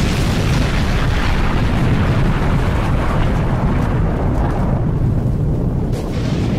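Loud, sustained rumble of a large explosion, heaviest in the bass, with a short crack about six seconds in.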